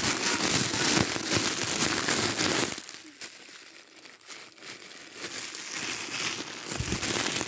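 Crinkling, crackling rustle, dense for the first three seconds, then fainter, and building again near the end.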